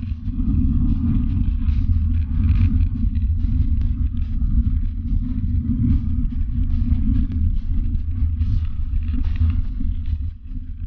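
Wind rumbling on the microphone of a camera riding along on a bicycle on a gravel road, with a faint scattered crackle of tyres on loose gravel.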